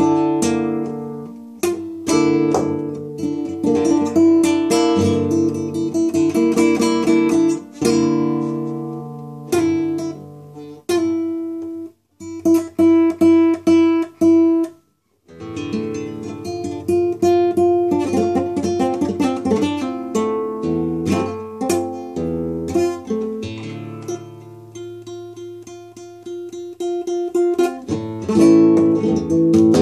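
Solo acoustic guitar played with the fingers, picked notes and chords ringing out, with two short breaks about twelve and fifteen seconds in.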